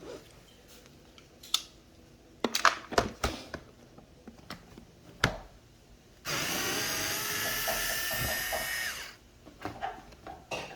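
Power drill with a screwdriver bit running steadily for about three seconds as it backs a screw out of a car door panel. Before it come a few scattered clicks and knocks of the tool and panel being handled.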